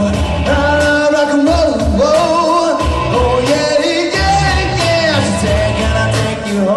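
Upbeat rock and roll style song: a singing voice over a band with a steady beat.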